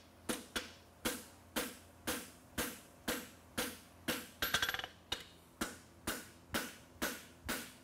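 Farrier's hand hammer striking a red-hot steel horseshoe on the anvil face, steady blows about two a second, with a brief metallic ring about halfway through. The blows are forging the shoe's branch, hitting its outside edge to catch it up with the inside.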